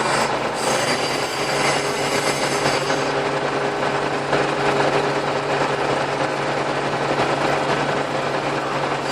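Diesel engine of a CompAir C200 TS-24 portable screw compressor running steadily with a constant hum.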